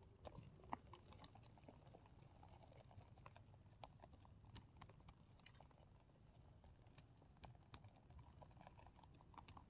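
Faint, irregular light taps and clicks over a low background rumble, with a sharper tap under a second in.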